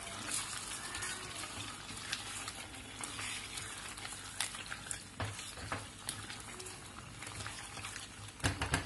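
Chicken in oily masala sizzling and bubbling in a kadai while a silicone spatula stirs it, with scattered light taps and scrapes of the spatula on the pan and a quick run of taps near the end.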